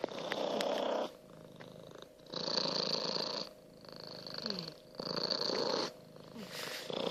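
Domestic cat purring loudly, growing louder and softer in turn about every two seconds.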